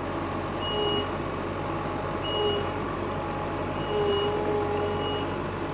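A construction machine's engine running steadily, with a high-pitched warning beeper sounding four times at uneven intervals.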